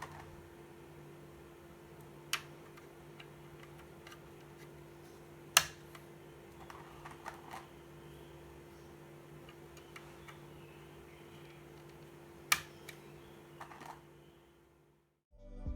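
A few scattered, sharp clicks and fainter taps from a Fantech MAXFIT61 mechanical keyboard and its lubed Gateron G Yellow switches, three of them louder than the rest, over a steady low hum. Music starts loudly right at the end.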